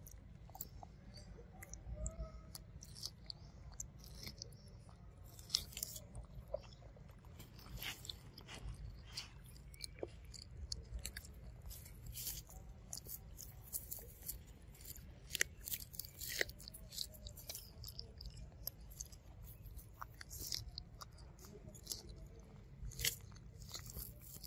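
A macaque chewing corn kernels off the cob close by, with irregular crisp crunches and wet chewing.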